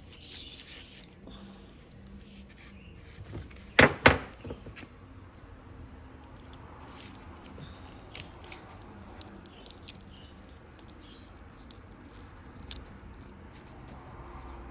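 Small clicks and light rattles of a windshield wiper blade being handled as its new rubber refill is pushed into the blade frame, with two sharp, loud clicks close together about four seconds in.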